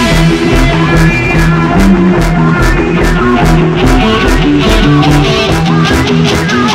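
Music: an electronic instrumental track with a plucked-string melody over a moving bass line and a steady drum beat.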